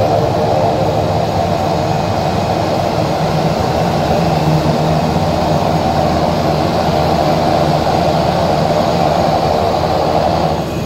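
Light single-engine propeller aircraft's piston engine and propeller running steadily, heard from inside the cabin, easing off slightly near the end.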